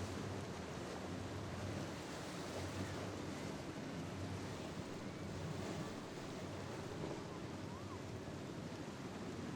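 Steady rush of waves and wind on the microphone, with the low drone of a boat engine underneath that weakens in the first seconds.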